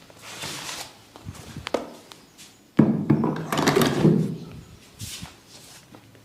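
Hands at work in a head massage: rubbing and patting on skin and hair, with a few light knocks. A loud scuffing rub starts suddenly about three seconds in and lasts over a second.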